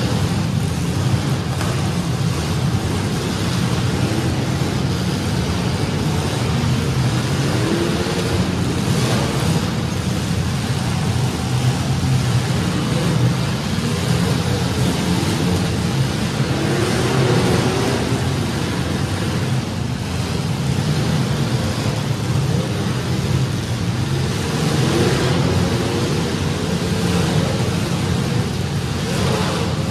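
Several demolition derby compact cars' engines running together, a loud steady drone with a revving rise and fall every several seconds.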